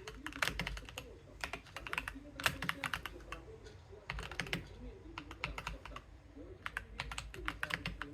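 Keystrokes on an Akko 3087 v2 tenkeyless mechanical keyboard: quick runs of key clacks with short pauses between them, and a longer lull a little past the middle.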